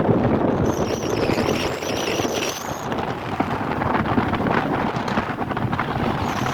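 Wind and road noise in a moving car, with wind buffeting the microphone. A faint wavering high whistle sounds for about two seconds near the start.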